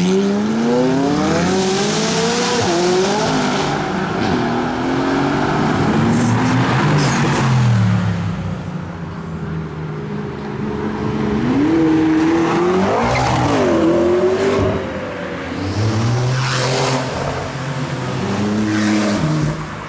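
McLaren twin-turbo V8 supercars revving and accelerating hard in a run of short clips, the engine note climbing steeply and dropping back several times as they pull away. A few sharp exhaust cracks come in among the revs.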